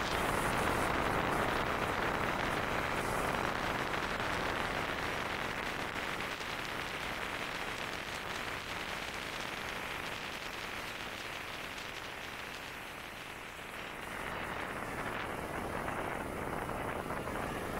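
Steady rush of wind and road noise from riding a Honda Titan 125 motorcycle at speed. It eases a little about two-thirds of the way through and builds again near the end.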